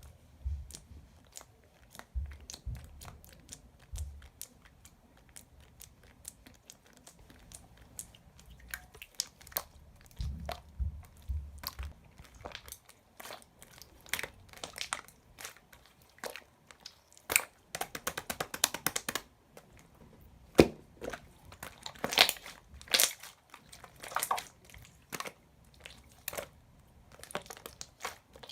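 Clear slime being squished and poked by hand, making irregular sticky clicks and pops, with a run of rapid crackling clicks about two-thirds of the way through.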